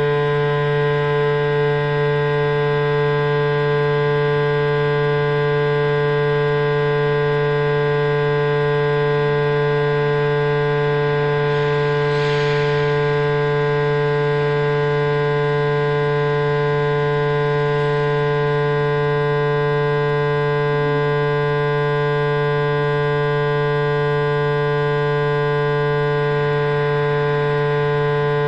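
Loud, steady electronic drone with many stacked overtones over a strong low hum, unchanging throughout: the sound of the installation filling the exhibition room.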